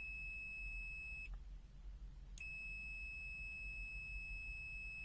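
Aneng SZ301 multimeter's continuity buzzer sounding a steady high-pitched beep, signalling a closed circuit across the test leads. It beeps for about a second, stops for about a second, then comes back on and holds steadily.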